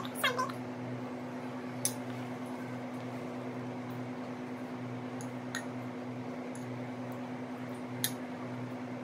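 Steady mechanical hum with a pulsing low throb, broken by a few faint clicks. A brief squeaky sound comes right at the start and is the loudest thing heard.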